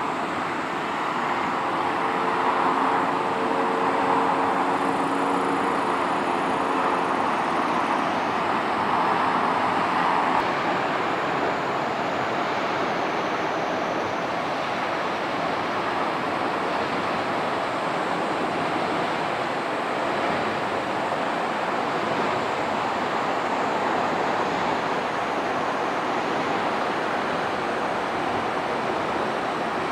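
Steady outdoor roar of distant road traffic, even throughout, with a low humming engine tone that comes through for the first several seconds.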